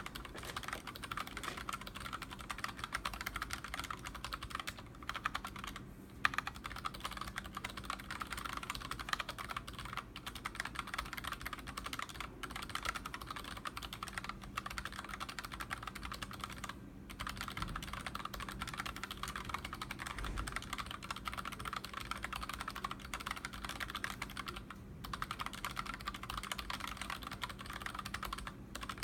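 Royal Kludge RK-S108 mechanical keyboard with unlubed Kailh Box Red linear switches and PBT Cherry-profile keycaps, typed on quickly and continuously, a rapid stream of keystroke clacks with a few brief pauses.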